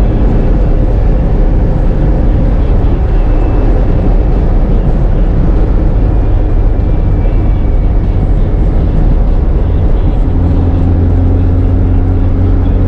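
1965 Volkswagen Beetle's 1776cc air-cooled flat-four engine, breathing through velocity stacks and an A1 exhaust, running loudly while driving. Its note settles to a steady pitch about ten seconds in.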